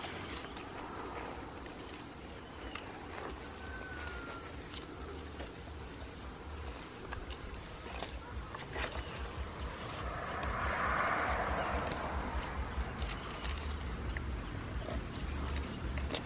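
Steady high-pitched drone of insects in the surrounding trees, with leaves rustling as a leafy branch is handled; the rustling is loudest for about two seconds a little past the middle.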